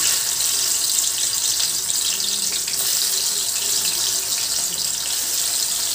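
A rohu fish steak sizzling in hot oil in a kadai, a loud steady hiss that starts suddenly as the piece goes into the oil.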